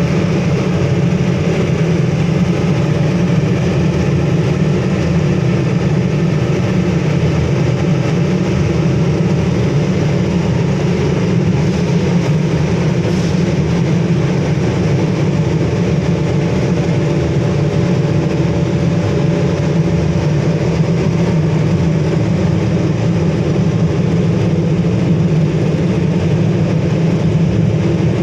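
LPG-fired melting furnace burner and its air blower running steadily: a constant low-pitched rush with a faint steady hum, no change throughout.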